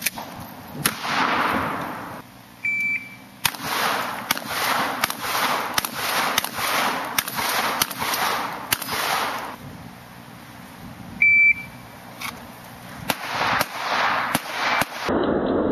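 Handgun shots in rapid strings of about two a second, each with an echo off the range. Twice, a shot timer's short high beep starts a string: once about 3 s in and again about 11 s in.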